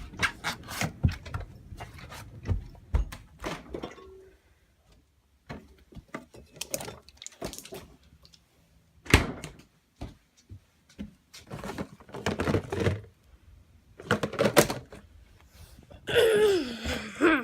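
A scattered series of knocks and thumps, separated by short stretches of near silence. A wavering pitched sound comes in near the end.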